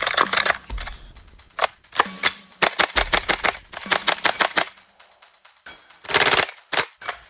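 Scar-L airsoft rifle firing several short full-auto bursts of rapid clicking shots, with brief pauses between bursts.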